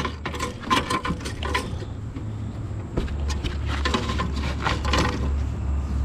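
Quick light tapping and clattering as a largemouth bass is handled on a hard plastic fish-measuring board: two bursts of rattles, one at the start and another about four seconds in, over a steady low rumble.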